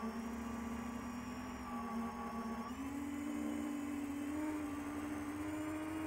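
Quadcopter's four brushless motors (iFlight XING 2814 1100KV) with 10-inch three-blade props whining steadily in flight, picked up by the drone's onboard recorder. About three seconds in, the pitch steps up as the throttle is raised.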